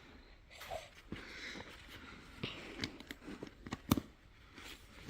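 Pliers working at a piece of chain link stuck in a tire tread: scattered light metal clicks and scrapes, with one sharper click about four seconds in.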